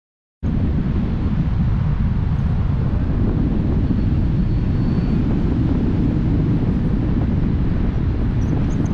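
Wind buffeting the microphone of a camera riding on a paraglider in flight: a loud, steady rumbling rush that cuts in suddenly about half a second in.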